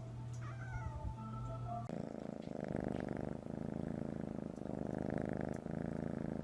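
Domestic cat purring in an even rhythm, about one breath a second, starting about two seconds in. Before that there is a faint steady hum with a few short high gliding squeaks.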